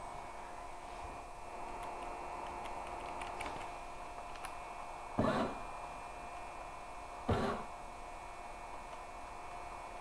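A brushless-motor robot actuator swinging a long aluminium arm up and back down, making two short loud whirs about two seconds apart over a steady high whine. Faint computer-keyboard clicks come before the first swing.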